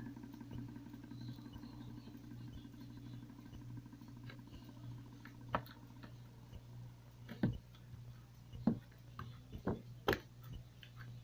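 Sticky homemade slime being squeezed out of a cut balloon and worked in the fingers, making scattered short sticky pops and clicks, most of them in the second half. A steady low hum underlies the first half and stops about six seconds in.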